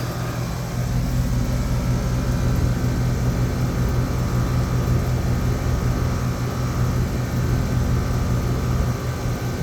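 Air-conditioning condensing unit running with a steady low hum.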